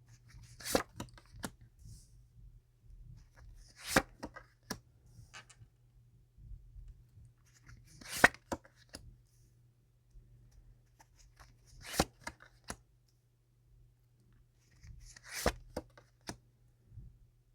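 Tarot cards being shuffled and handled, with a short burst of sharp card snaps and rustling about every four seconds.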